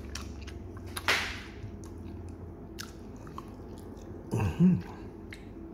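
Close-up chewing and biting of food, with one sharp, crunchy noise about a second in. A short voiced hum from the eater comes a little after four seconds.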